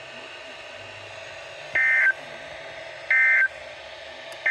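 Emergency Alert System end-of-message code: short bursts of buzzy two-tone digital data about a second and a half apart, two whole and a third just starting at the very end, over a faint broadcast hiss. The bursts signal the end of the severe thunderstorm warning.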